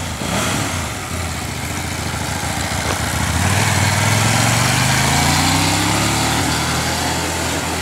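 Kasinski Comet GTR 250 motorcycle's 250 cc V-twin engine running as the bike rides by, its pitch rising steadily from about halfway through as it accelerates.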